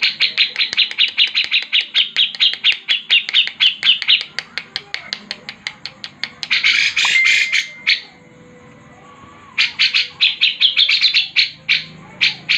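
A songbird calling in a fast series of chirps, about ten a second, then a short harsh, buzzy rattle, a brief pause, and another run of chirps that thins to a few single notes near the end.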